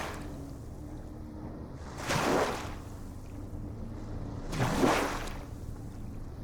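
Ocean waves breaking and washing in, a rushing swell of surf about every two and a half seconds over a steady low rumble of sea.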